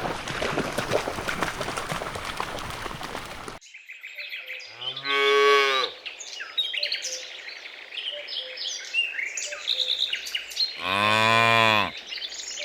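Cows mooing: two long moos about six seconds apart, with small birds chirping between them. Before the first moo there is a stretch of steady noise with clicks that cuts off abruptly.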